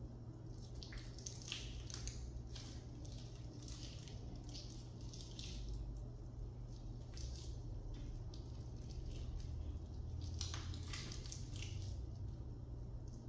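Sticky pink butter slime made with air-dry clay being kneaded and stretched by hand, giving faint, irregular wet squishing and clicking sounds.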